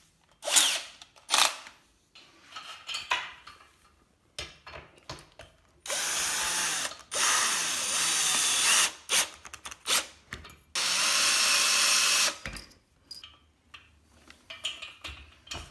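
Cordless drill-driver driving bolts into a furniture frame. Two short trigger blips come near the start. Later there are runs of one to three seconds each, with small clicks between them.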